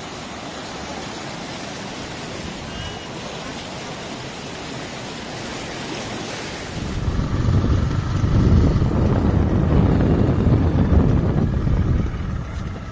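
Muddy floodwater rushing and churning across a field, a steady rushing hiss. About seven seconds in a louder, deeper rumble takes over.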